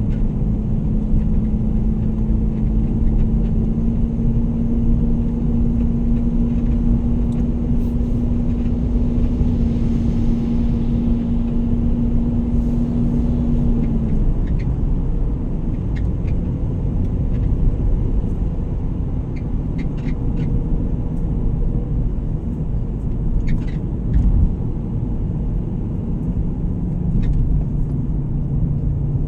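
Vehicle driving along a road: a steady low rumble of road and engine noise, with a held hum that stops about halfway through.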